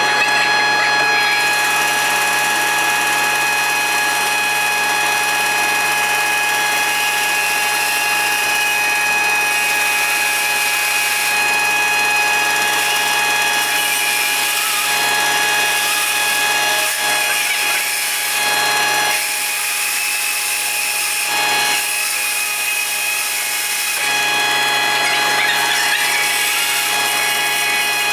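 Felder FB 510 bandsaw running steadily while its blade cuts through a large, dried wood burl fed through by hand.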